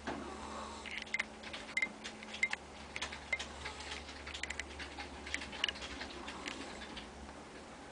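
Sleeping ferret snoring: a faint run of small, irregular clicking and rattling breath sounds.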